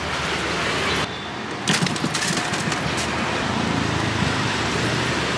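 Steady street traffic noise from passing motorbikes and cars, with a cluster of sharp clicks about two seconds in.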